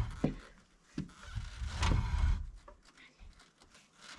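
A heavy wooden beam being slid into place, with a few knocks of wood on wood, the clearest about two seconds in, over bursts of low rumbling noise.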